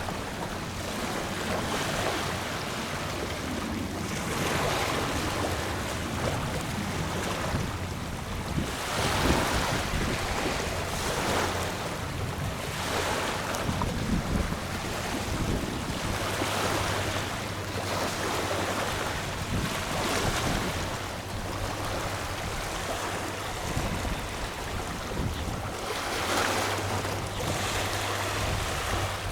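Small waves washing onto a sandy beach at a river mouth, each wash swelling and fading every couple of seconds. A steady low hum sits underneath at times.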